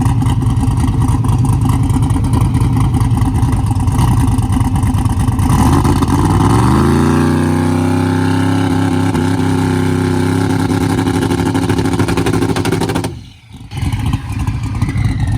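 Turbocharged car engine on a hard test pull with a freshly flashed fuel map. Its note climbs in pitch about halfway through and then holds steady. It dips out briefly near the end before picking up again.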